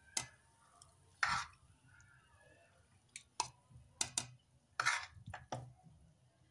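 A spoon scraping and tapping as soft cooked tomato and onion is spooned into a plastic grinder jar: a string of short clicks, with a couple of longer scrapes about a second in and near five seconds.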